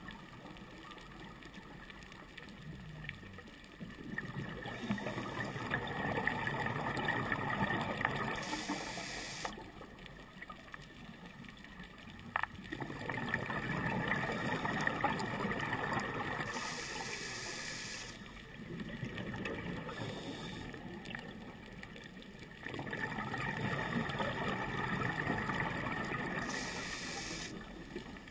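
Scuba diver's regulator breathing underwater: four long bubbling exhalations, each several seconds, with quieter pauses between them. A sharp click sounds about twelve seconds in.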